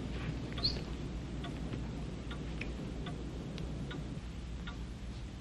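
Light, irregular ticks and clicks, a few each second, over a low steady hum.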